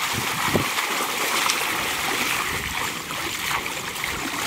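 Shallow floodwater splashing and sloshing as people wading waist-deep throw and slap the water with their hands, with a sharper splash about half a second in.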